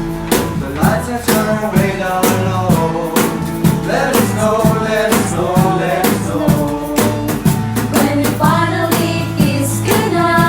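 A live band playing a song with singing, a steady drum beat, bass and guitar.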